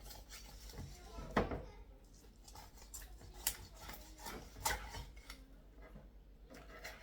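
Knife cutting onion on a cutting board, with a few sharp knocks of the blade on the board and soft rubbing in between.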